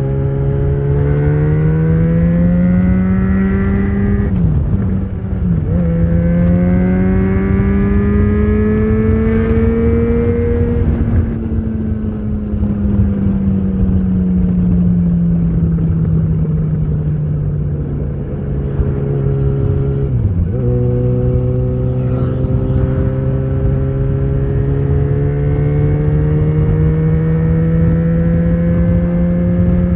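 Yamaha XJ6's 600 cc inline-four running through an Ixill full exhaust with the dB killer fitted, under way. The engine note climbs, then drops twice in quick succession about four and five seconds in as it shifts up. It pulls up again for several seconds, then falls slowly as the bike eases off. After a brief dip about twenty seconds in, it rises steadily again.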